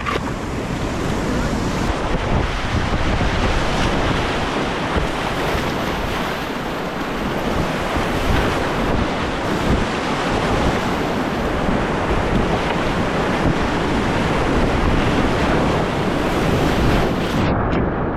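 Steady rush of river rapids with wind buffeting the microphone. Near the end the sound suddenly turns dull and muffled.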